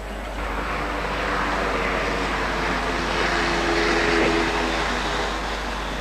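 A passing engine: its hum and hiss swell from about half a second in, are loudest around four seconds, then fade away.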